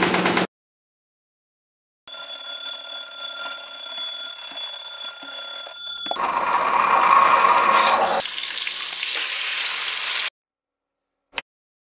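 A twin-bell alarm clock rings steadily for about four seconds and stops abruptly when a hand shuts it off. Then bacon and an egg sizzle in a frying pan for a few seconds, and a single short click comes near the end.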